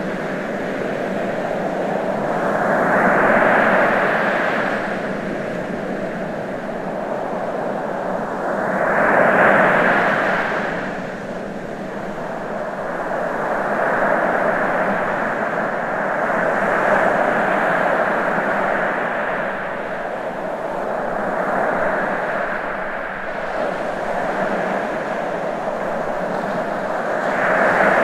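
Ocean waves breaking on a shore: a continuous wash of surf noise that swells and eases every few seconds.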